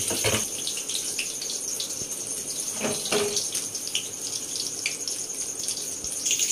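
Batter-coated pumpkin flowers sizzling in hot oil in an aluminium kadai, a steady hiss with a couple of knocks near the start and about three seconds in.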